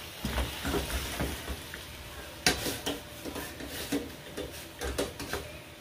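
Stir-fry of bok choy, carrots and shrimp being stirred with a wooden spoon in a stainless steel pot, with faint sizzling and scattered clicks and knocks of utensils against the pots; one sharper knock about halfway through. A fork clinks in a small pot of soaking noodles.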